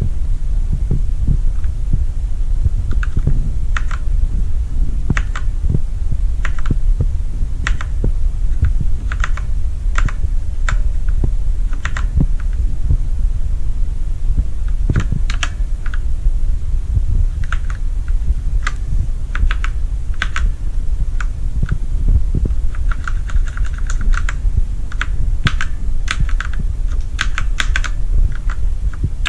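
Keys of a Redragon Ratri K595 mechanical keyboard with Outemu Black linear switches being pressed, at first singly about a second apart, then in quicker runs near the end. A steady low hum runs underneath.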